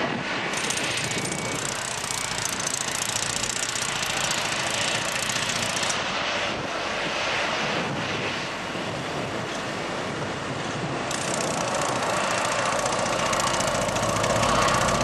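Boeing 737-800's CFM56-7B turbofan engines running at taxi power, a steady jet rush and whine. It grows a little louder near the end as the aircraft rolls past.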